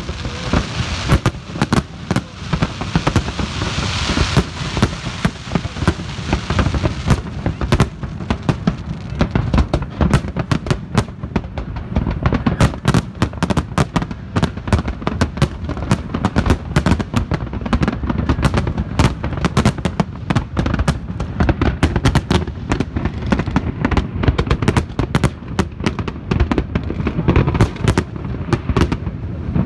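Large fireworks display: a continuous barrage of shell bursts, many bangs a second over a steady rumble, with a hissing crackle in the first few seconds.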